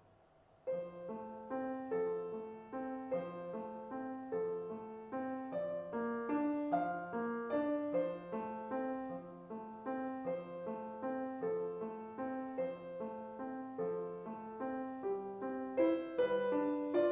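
Grand piano played solo, a cradle song, starting a little under a second in: a melody over a regularly repeating figure of low notes, growing louder near the end.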